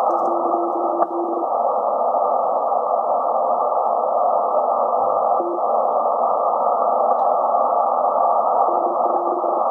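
Collins 51S-1 shortwave receiver tuned to the 14 MHz band: steady band hiss through the receiver's narrow audio passband. A faint low-pitched Morse code signal keys on and off in dashes during the first second and a half and again near the end, with one click about a second in.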